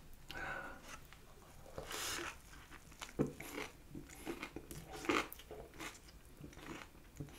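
A person chewing a mouthful of fried chicken bao close to the microphone: irregular soft clicks and crunches, the loudest about three and five seconds in.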